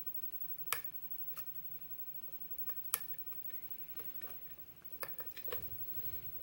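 Lock pick and tension wrench working the spool-pinned pin stack of a Schlage lock cylinder: scattered sharp metal clicks, with a quick cluster of them near the end over some low handling bumps.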